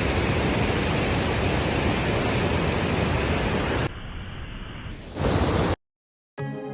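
Steady rushing of a large waterfall. About four seconds in it drops quieter and muffled, comes back full for a moment, then cuts off abruptly.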